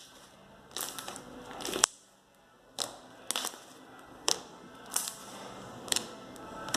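Slime being squeezed and worked in the hands, giving short sharp clicks and pops about once a second.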